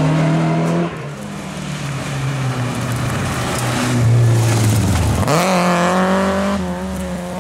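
Rally car engines at full throttle as the cars race past, revving hard; the engine note changes abruptly near one second in and rises sharply about five seconds in.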